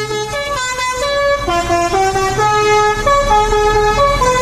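Telolet bus horn on a luxury coach playing a quick melody of short notes stepping up and down, over a low engine rumble.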